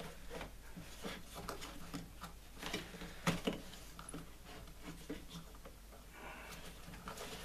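Handling noise from the plastic housing and belt parts of an electric lawn mower being fitted together by hand: scattered light clicks and knocks, with some rubbing near the end, over a faint steady low hum.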